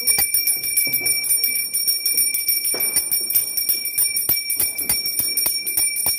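Puja hand bell rung rapidly and continuously, its steady ringing tones renewed by several strikes a second, as is done while the aarti lamp is waved.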